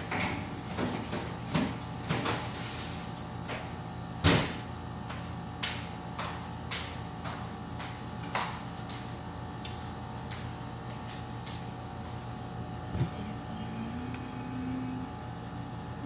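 Scattered knocks and clicks over a steady background hum, the loudest knock about four seconds in and another near the end.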